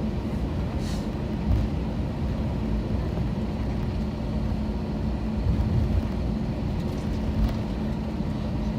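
Airbus A321 cabin noise while taxiing after landing: a steady low rumble of the wheels and idling engines under a constant hum, with a few light bumps.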